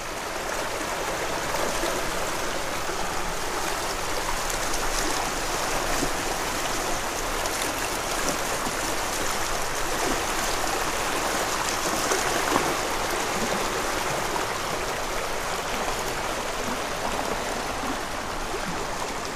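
Water running steadily in a stream.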